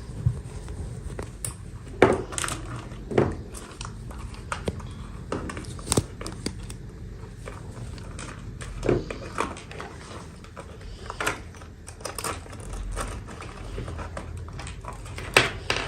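Hands handling plastic toy packaging and small plastic pieces: irregular clicks, taps and light crinkling, with a few sharper knocks.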